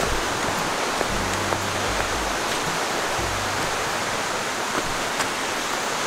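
Steady rushing of a waterfall and its stream, with a few faint ticks of footsteps on the trail.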